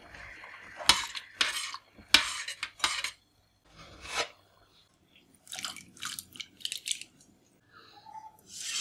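A metal spoon clinking and scraping against a stainless steel saucepan, as a string of short strokes with a couple of sharp clinks in the first few seconds.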